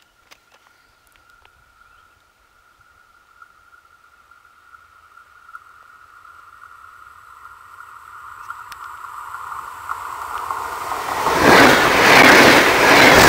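UT-440R electric multiple unit approaching at speed. A steady high tone grows slowly louder as it nears. About eleven seconds in it goes by close with a loud rush of wheel-on-rail noise that swells several times as the bogies pass.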